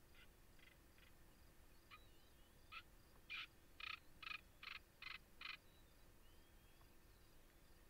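Quiet outdoor ambience with an animal calling: a few faint short notes, then, about three seconds in, a run of about seven louder short notes, evenly spaced at roughly two a second.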